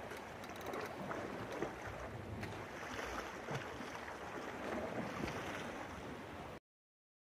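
Waves and wind noise on the microphone at the shoreline, with scattered faint clicks, while a fish is fought on a jigging rod; the sound cuts off abruptly to silence about six and a half seconds in.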